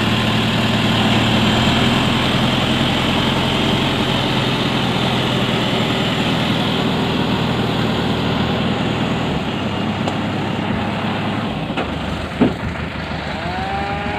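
Diesel engine of a log-laden truck running steadily as it works through deep mud, its note changing about nine seconds in. A single short knock about twelve seconds in.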